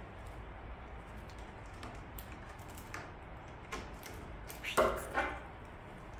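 Light taps and knocks as a feather wand toy and a cat's paws strike a wooden cat-tree shelf, with two louder short sounds about five seconds in.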